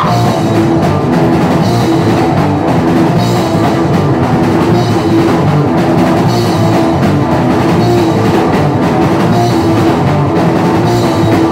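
Live punk rock band playing loud, with a pounding drum kit and cymbals over distorted electric guitar.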